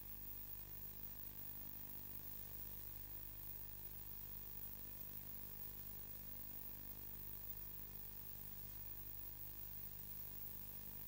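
Faint, steady electrical hum with hiss, unchanging throughout; no engine, wind or sea sounds come through.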